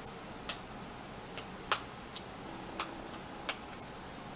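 Hands working at an eyeshadow palette's packaging that will not come open: a series of light, irregular clicks and taps, the loudest about halfway through.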